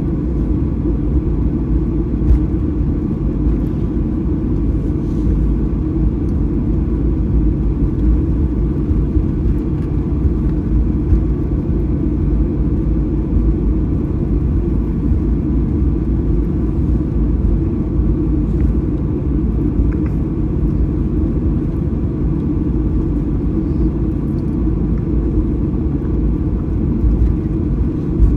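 Cabin noise of a Boeing 737-800 taxiing, heard from a seat behind the wing: a steady low rumble from its CFM56 engines at taxi idle and the wheels rolling, with a faint steady hum and a few light ticks.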